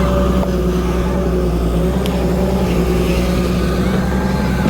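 A motor engine running steadily at a constant speed, with a low, even hum.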